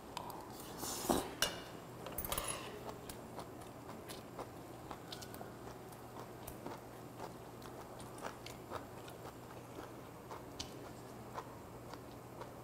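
Close-miked chewing of a spoonful of bibimbap mixed with vegetables and radish, with a couple of louder bite and mouth noises about one and two seconds in, then soft, irregular chewing clicks.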